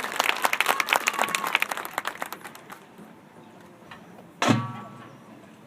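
Crowd applause fading away, then one sudden loud accented hit from a marching band: a short brass chord struck together with the drums, ringing out briefly.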